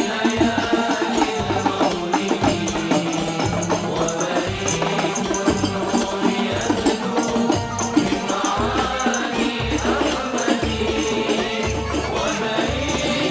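Music with singing voices over a steady beat of hand percussion.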